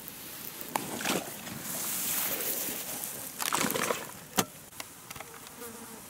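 Water sloshing and splashing, mixed with a few short rustling handling noises and one sharp click about four and a half seconds in.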